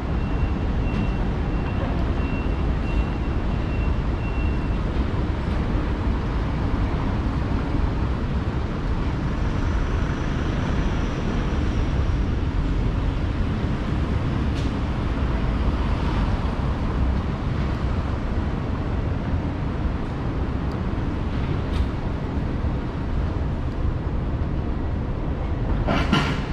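Outdoor city street ambience: a steady low rumble of traffic or trains, with a short high electronic beep repeating for the first few seconds and a brief rattle near the end.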